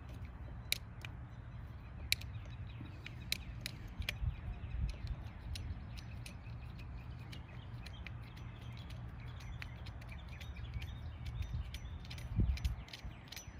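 Scattered sharp clicks and light metal taps of needle-nose pliers working a cable end at a carburetor, over a low steady rumble, with a louder spell of handling noise near the end.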